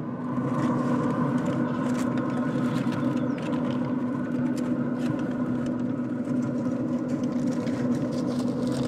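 Aluminium foil crinkling and rustling in irregular crackles as a foil-wrapped rack of ribs is peeled open, over a steady motor hum.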